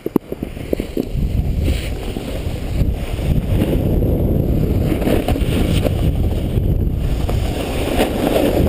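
Wind rushing over a GoPro microphone and a snowboard scraping over packed snow as the rider heads down a boardercross course at speed. A few sharp knocks come in the first second, then the rush builds and stays loud.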